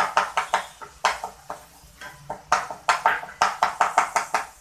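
Spatula stirring and scraping frying onion paste in a non-stick kadai: quick strokes about six a second, in two runs with a short pause just before halfway.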